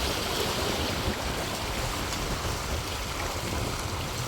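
Steady rushing noise of inlet water and surf washing against jetty rocks, with a low rumble underneath.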